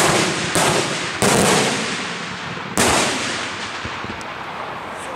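Aerial firework shells bursting overhead in a daytime salute: four sharp bangs in the first three seconds, three close together and the last after a short gap. Each fades out in a long rolling echo.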